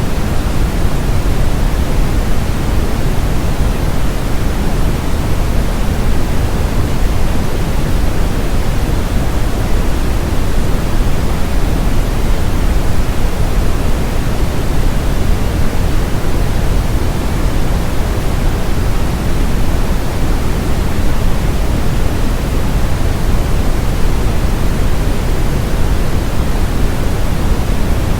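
Synthetic brown noise: a steady, unbroken rumbling hiss, heaviest in the bass and falling off toward the treble.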